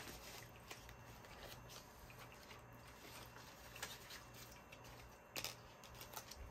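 Faint rustling and light ticks of a plastic cash envelope and paper money being handled, with one sharper click about five and a half seconds in.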